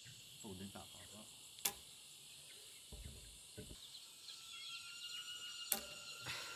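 A carpenter's ink line plucked and released against a squared log beam, giving a sharp snap about five and a half seconds in, with another sharp click near the start and a few dull knocks of handling between. Insects chirr steadily in the background.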